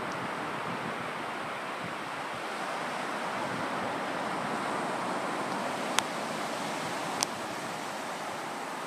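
Surf on a sandy beach: a steady rush of waves breaking and washing up the shore, with some wind. Two short sharp clicks a little over a second apart come about two-thirds of the way through.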